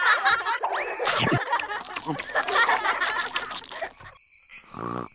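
Cartoon monster's cackling laughter, layered 'hahaha' voices, fading out about three and a half seconds in; after it a steady high-pitched hiss remains.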